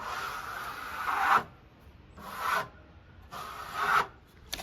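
Three rasping scrapes on wood, a long one and then two shorter ones, each growing louder toward its end.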